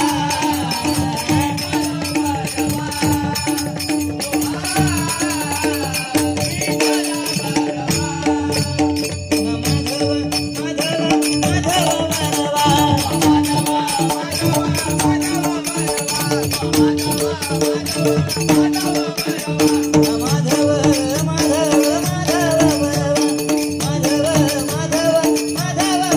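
Devotional bhajan music: a wavering, ornamented melody over a steady held drone note, with a driving hand-drum beat and jingling rattle-like percussion.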